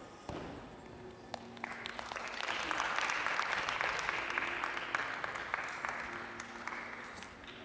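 Audience applauding, building up about two seconds in and slowly fading near the end, with single claps standing out.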